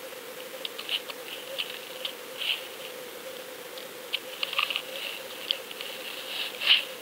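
Underwater sound from a GoFish Cam fishing camera on the sandy surf bottom: a steady hum with scattered crackling clicks. The clicks bunch about two and a half and four and a half seconds in, and the loudest comes near the end.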